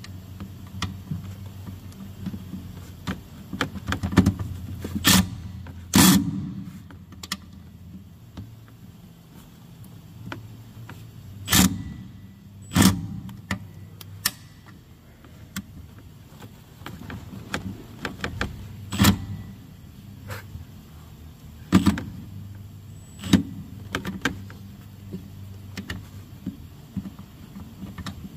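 Hand ratchet with a socket extension working a bolt by the condenser fan motor of a Thermo King refrigeration unit: ratchet clicking, with a dozen or so sharp metal knocks as the tool shifts and strikes the metal, over a low steady hum.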